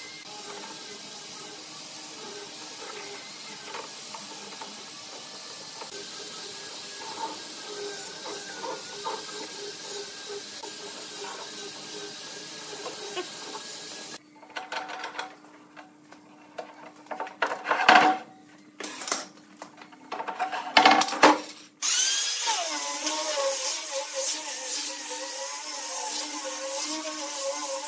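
A low steady hum for about the first half, then a quieter stretch broken by a few sharp knocks, then a hand-held angle grinder with a sanding disc running as it sands a wooden tabletop, its pitch wavering under the load.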